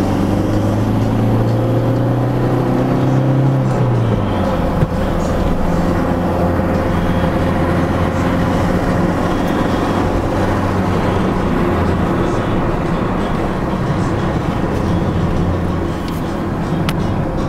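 Citroën Xsara 2.0 HDi four-cylinder turbodiesel pulling up a mountain pass, heard from inside the cabin: the engine note rises for about four seconds, drops sharply, then runs on steadily under tyre and road noise.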